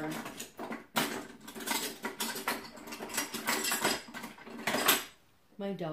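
A basting brush clicking and scraping against the inside of a ceramic bowl of melted butter, in a quick irregular run of small knocks, with one sharper knock near the end.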